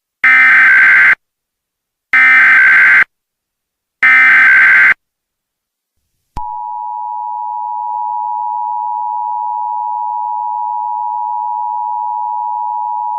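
Emergency Alert System signal: three one-second bursts of SAME digital header data, about a second apart, then about six seconds in the steady two-tone EAS attention signal begins and holds.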